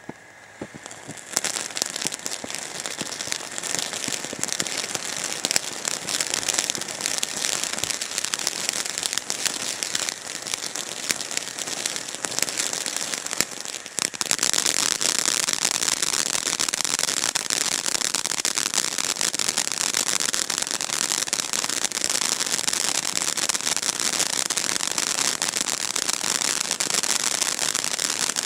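Tropical Fantasy consumer fountain firework spraying sparks with a dense crackling hiss that starts about a second in. About halfway through, it steps up to a louder, steadier spray.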